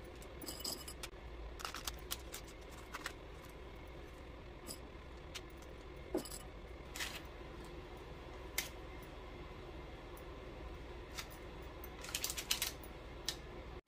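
Faint, scattered light clicks and rustles as hands press chocolate chips onto raw cookie dough balls on a parchment-lined baking tray, with a few quick clusters of clicks, over a steady low hum.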